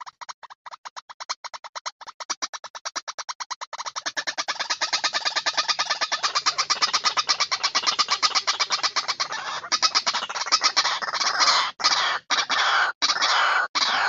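White-breasted waterhen calling: a rapid train of short repeated notes, about ten a second, that grows louder about four seconds in and turns into denser, overlapping calls cut by a few short pauses near the end.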